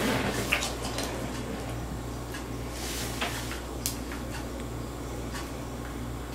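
Cats eating dry kibble from a plastic jar and nudging it, giving scattered small clicks and crackles with a brief rustle about three seconds in, over a steady low hum.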